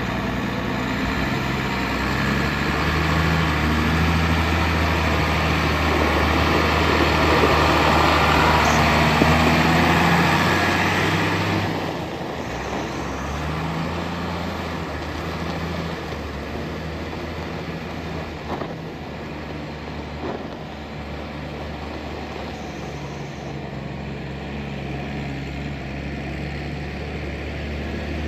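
2005 New Holland TM140 tractor's six-cylinder diesel engine running steadily as the tractor drives off. It is loud for about the first twelve seconds, then drops noticeably quieter as it pulls away.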